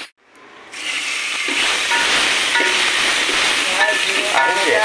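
Hot oil sizzling steadily in an aluminium pot as a tempering of mustard seeds, cumin and chopped tomato is stirred with a metal spoon. This is the vaghar for cooking mung. The sizzle starts about a second in after a brief silence, with a few light clinks of the spoon against the pot.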